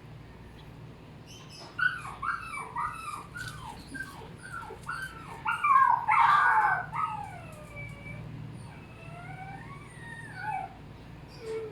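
Dog whining: a run of short, high whimpers that rise and fall in pitch, crowding together and loudest about six seconds in, then thinning to a few longer drawn-out whines.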